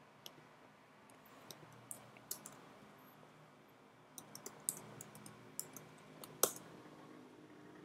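Faint computer keyboard clicks: a few scattered clicks, then a quick run of keystrokes about four seconds in, ending in one louder key press.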